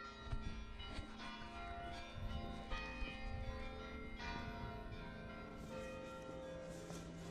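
Church bells ringing: several bells struck at uneven intervals, their tones overlapping and dying away slowly, over a low background rumble.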